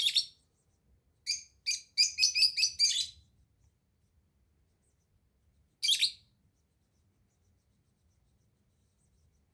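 A small bird chirping in short, high calls: one at the start, two more, then a quick run of about six, and a last chirp after a pause.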